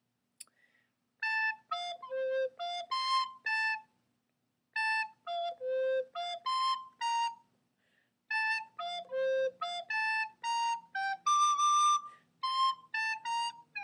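Soprano recorder playing three short phrases of tongued, separate notes built on an F-major arpeggio (A, F, C). The last phrase climbs to a longer-held high D.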